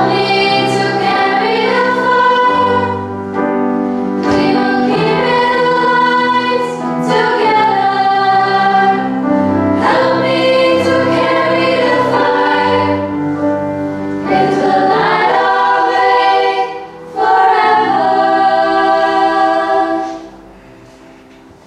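Girls' pop choir singing in sustained chords with grand piano accompaniment, phrase by phrase; the final chord dies away near the end.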